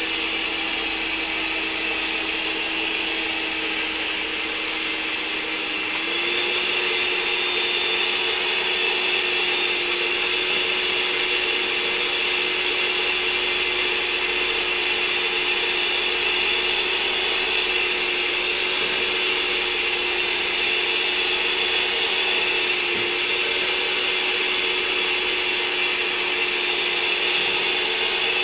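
Clikon electric hand mixer running steadily, its beaters whipping milk and cream in a plastic bowl, with a steady motor whine. About six seconds in, the pitch steps up slightly and it gets a little louder.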